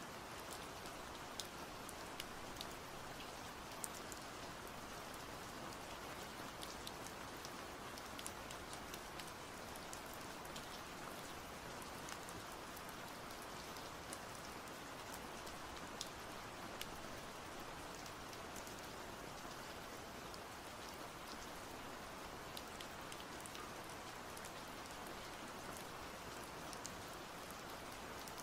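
Steady rainfall: an even wash of rain with scattered sharp ticks of single drops landing close by.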